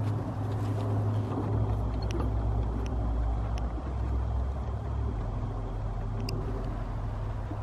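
Small gas engine of a garden tiller running steadily, its low note shifting a couple of times, with a few faint clicks.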